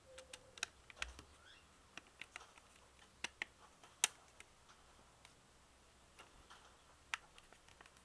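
Thin plastic battery cover of a Samsung Galaxy S II being pressed and fitted onto the phone's back. Scattered light plastic clicks and taps come irregularly, the sharpest about four seconds in, as the cover's catches resist snapping into place.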